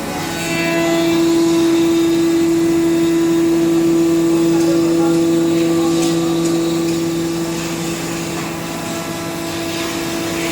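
CNC machine running with a steady low hum that sets in just after the start and eases off slightly near the end.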